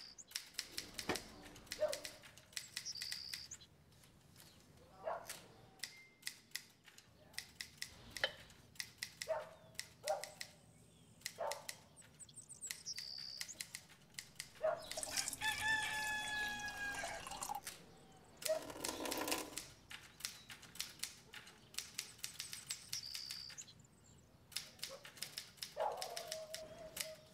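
Dishes, pots and utensils clinking and knocking as they are handled at a kitchen counter, a few knocks ringing briefly. Short bird chirps come now and then, with one longer call about halfway through.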